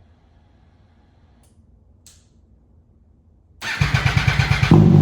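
A 2019 MV Agusta Turismo Veloce's three-cylinder engine, breathing through an HP Corse Hydroform slip-on exhaust, is started: after a few quiet seconds the starter cranks for about a second, then the engine catches near the end and settles into a loud, steady run.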